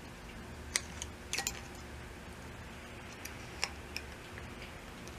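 Light metallic clicks and ticks of small steel parts of a diesel injection pump being handled and fitted by hand: a couple of clicks about a second in, a quick cluster around a second and a half, and two more near four seconds, over a faint steady low hum.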